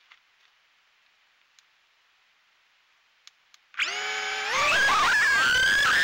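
Near silence, then about four seconds in the brushless motors of a Happymodel Mobula6 HD tiny whoop drone spin up. Their high whine climbs in pitch for about a second and a half as the drone throttles up to lift off, then holds steady.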